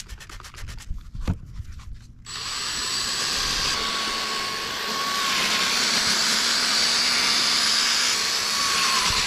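Ryobi cordless drill spinning a sanding pad against a wet plastic headlight lens, wet-sanding it with an 800-grit pad. It starts about two seconds in after a click, runs steadily with a faint motor whine, and stops suddenly at the end.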